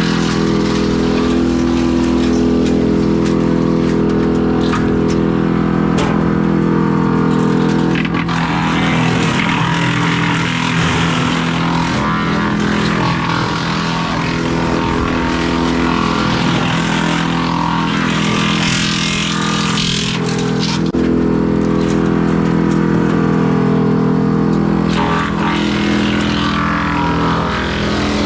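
A large engine running steadily under load, its pitch shifting a few times, with a brief dip about two-thirds of the way through.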